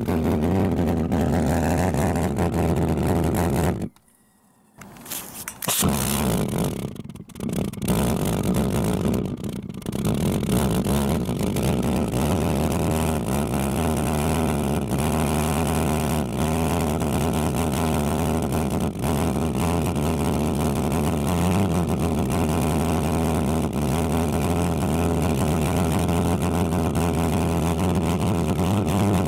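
Homemade valveless pulse jet made from aerosol cans running with a loud, steady, deep buzzing drone. About four seconds in the sound breaks off for about a second, then sputters unevenly for a few seconds before settling back into a steady drone.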